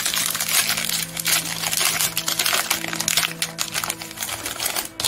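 Plastic trading-card pack wrapper crinkling and tearing as it is ripped open and pulled apart by hand, with faint steady background music under it.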